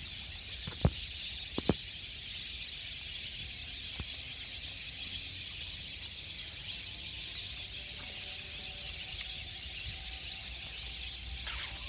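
Steady high-pitched outdoor hiss from a lakeside chorus of small creatures, with two sharp knocks about a second in and a brief rustle near the end.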